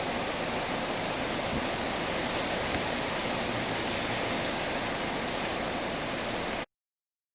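Tropical-storm wind rushing steadily and buffeting the microphone. The sound cuts off suddenly into silence near the end.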